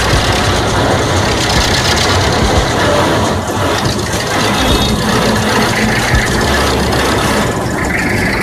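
Small motor running steadily close up, with a low rumble under a hissing buzz.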